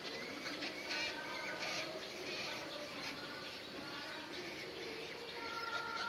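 Birds chirping and calling: many short, high chirps overlapping, with a steadier thin call coming in near the end.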